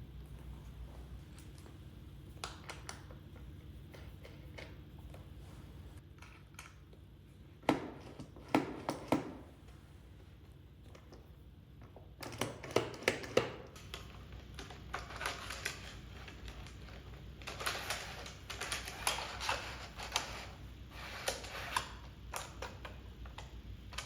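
Scattered light clicks and knocks of hardware and hand tools being handled while T-track is fitted to the router table, with a few louder clusters of taps and quicker runs of small clicks later on. A low steady hum runs underneath and drops out for several seconds in the middle.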